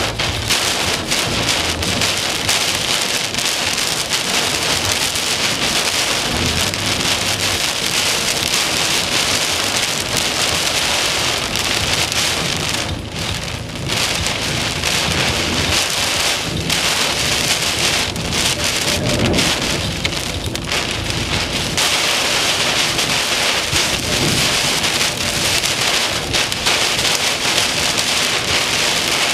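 Heavy wind-driven rain pelting a truck during a severe straight-line windstorm: a loud, steady dense hiss of countless small impacts, easing briefly about thirteen seconds in.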